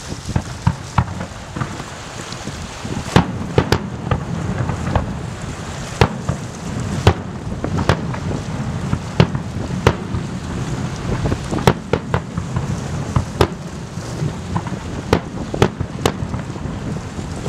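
Fireworks display: irregular sharp bangs from launches and bursting aerial shells, the loudest every second or two with smaller cracks between, over a steady low rumble.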